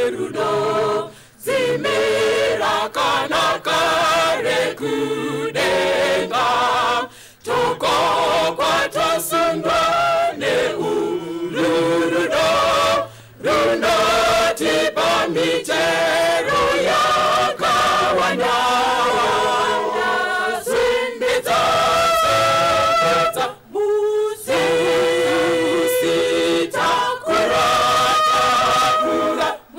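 Mixed choir of men and women singing a cappella, a slow hymn in long phrases with brief breaks between them.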